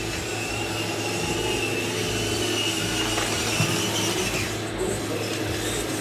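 Small electric motors and gearboxes of radio-controlled scale model trucks and an excavator whirring, with a thin high whine that holds and then falls away a little after four seconds.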